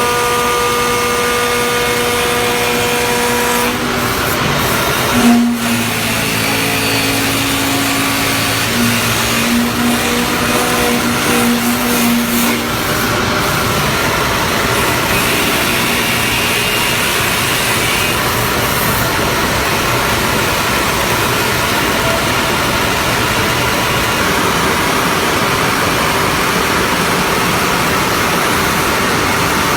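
CNC wood lathe running: a steady motor whine with cutting noise, its pitch shifting in steps over the first dozen seconds, then an even, dense rush.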